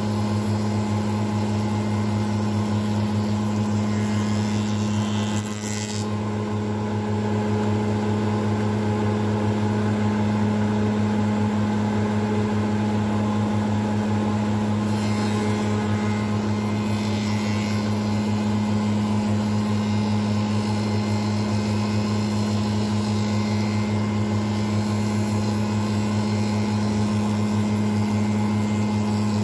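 Spindle moulder running with a steady hum while its cutter machines a strip of red deal into a moulded handle profile. A hissing cutting noise rises as the wood is fed past the cutter, about four seconds in and again from about fifteen to twenty-five seconds.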